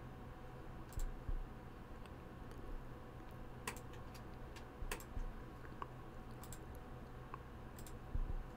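Scattered faint clicks of a computer mouse and keyboard, a dozen or so short sharp clicks spaced irregularly, over a low steady hum.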